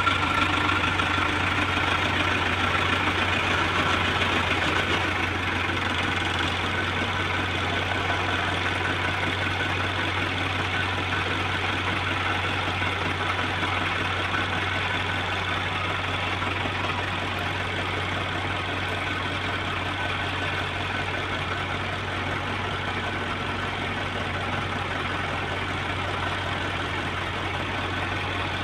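Excavator's diesel engine running steadily, with a constant low hum, a little louder in the first few seconds and then even.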